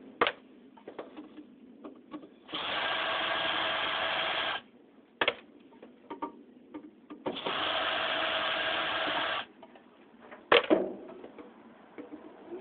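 Cordless drill/driver backing screws out of a ceiling fan's housing: two steady runs of about two seconds each. Between them come small clicks and handling knocks, and about 10.5 seconds in there is one loud sharp knock.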